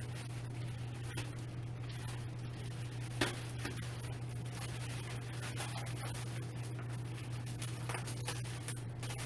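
Rubbing and scraping as gaming-chair parts are handled during assembly, with one sharp knock about three seconds in, over a steady low hum.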